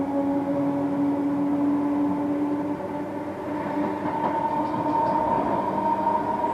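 Greater Anglia electric passenger train running at speed, heard from on board: a steady rumble of wheels on the rails with the whine of the traction motors. The whine changes pitch partway through, a lower tone fading and a higher one rising.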